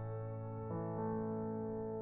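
Background music of soft, sustained keyboard chords, changing chord about two-thirds of a second in.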